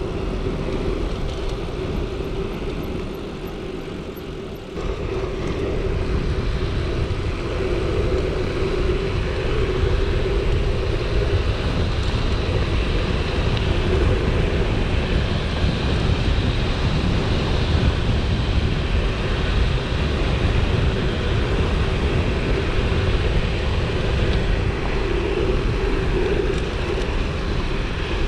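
Wind rushing over an action camera and a mountain bike's tyres rolling at speed, with a steady hum. The noise eases briefly about four seconds in, then picks up again and stays loud.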